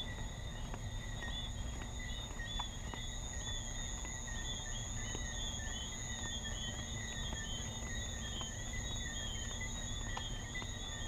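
Insect chorus: a steady high trill under many short chirps repeated several times a second.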